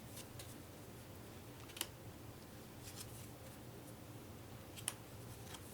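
Faint, sparse clicks and taps of stiff cardboard playing cards being handled and set down, with two sharper snaps about two seconds in and near the end.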